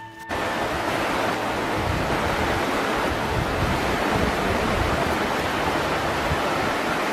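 Steady rush of a shallow river flowing over stones, with a low rumble of wind on the microphone.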